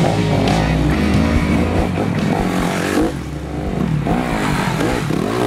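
Honda enduro dirt bike engines revving up and down under load on a steep gravel climb, the pitch rising and falling repeatedly.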